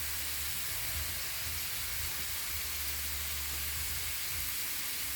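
Chicken and pork sizzling on a hot Blackstone flat-top griddle, a steady hiss with a low rumble underneath.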